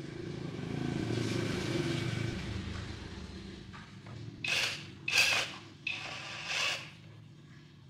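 Cordless drill-driver turning screws in a sheet-metal device casing. It runs for a couple of seconds, then gives three short bursts.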